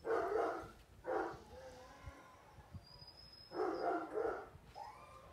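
A dog barking: one bark at the start, another about a second in, then two in quick succession near four seconds.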